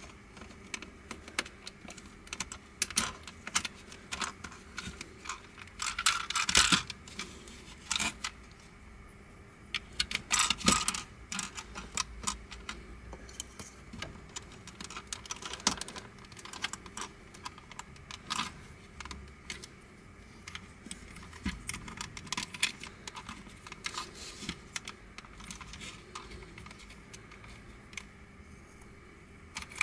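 Hard plastic twisty-puzzle pieces clicking and clattering as they are handled and fitted together by hand. The clicks come irregularly, with two louder dense clusters about six and ten seconds in.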